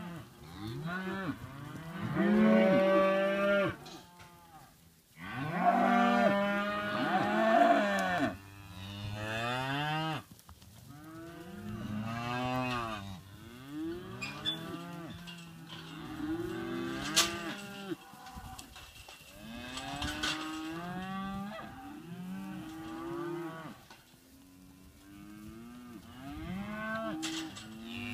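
A mob of young Angus steers, about 6 to 9 months old, mooing: many long, overlapping calls that rise and fall in pitch, one after another. The loudest calls come in the first eight seconds, with a few sharp knocks around the middle.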